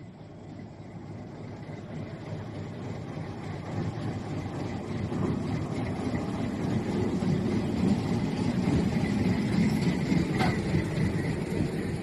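Low rolling rumble of a heavy vehicle, growing steadily louder as it approaches. A faint high squeal comes in toward the end, with one sharp click about ten seconds in.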